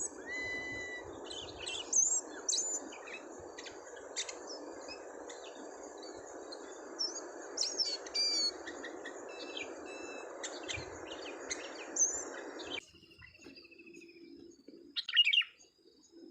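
A caged decoy bird chirping, with many short, sharp calls and a quick falling trill, over a steady hiss that cuts off suddenly about 13 seconds in.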